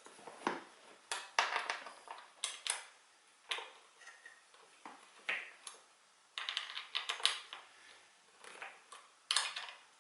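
Irregular bursts of small metallic clicks and rattles from chair-assembly bolts and an Allen key being handled and turned, with short pauses between the bursts.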